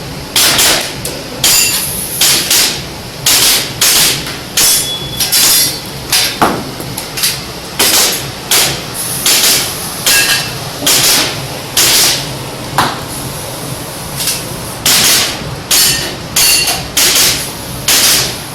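Airsoft pistol firing a practical-shooting course of fire: about thirty sharp shots, many in quick pairs with short gaps between strings, some followed by a brief metallic ring.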